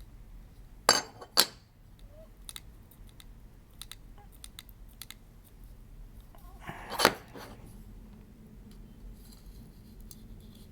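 Small hard parts of an M.2 SSD enclosure being handled and fitted together: two sharp clicks about a second in, scattered light ticks, and a louder knock about seven seconds in.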